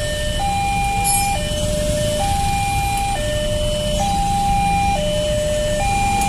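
Railway level-crossing warning alarm sounding a steady two-tone hi-lo signal, each tone held just under a second, over a low rumble of waiting motorcycle and truck traffic.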